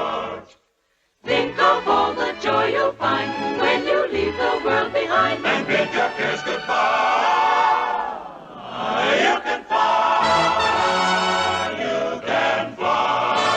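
A choir holds its last note and cuts off, and after about a second of silence orchestral music with a choir starts up, with a sweeping glide in pitch about two-thirds of the way through.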